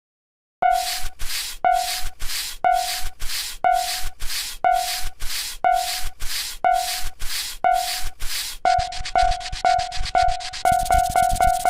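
Japanese railway level-crossing alarm ringing its 'kan-kan' bell, about two strokes a second. It starts about half a second in, quickens after about nine seconds and gets faster again near the end.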